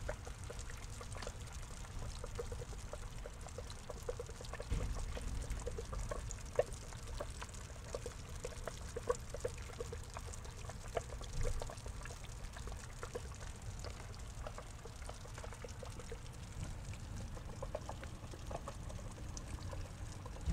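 Water trickling into a small pond, with many small plinking drops over a low steady rumble.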